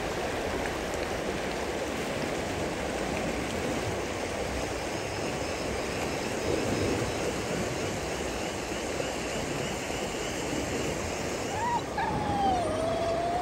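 River water rushing steadily. Near the end an animal gives one drawn-out cry that rises and then falls.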